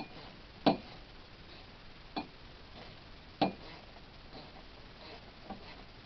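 A few sharp metallic clicks at irregular intervals, the loudest about a second in and two more at roughly a second and a half apart, with fainter ticks between: a socket on a 1/4-inch extension being worked onto an intake manifold bolt.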